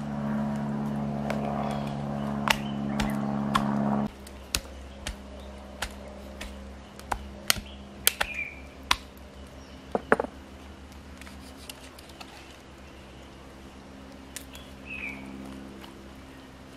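A steady hum of several tones cuts off suddenly about four seconds in. After that come sharp, irregular knocks of a hand-held stone pounding a plucked partridge against a wooden board, about a dozen spread over several seconds.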